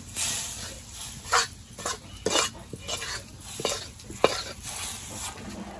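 Dal being tempered: a steel ladle tips hot oil and fried onions from a karahi into a pot of cooked dal, with a low sizzle. The ladle scrapes and clinks against the metal karahi and pot several times, and these strikes are the loudest sounds.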